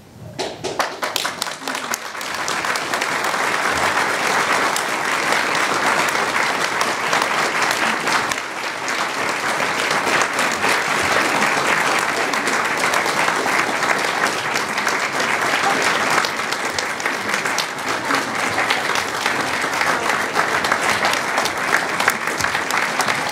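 Theatre audience applauding, a dense sustained clapping that builds over the first couple of seconds and then holds steady.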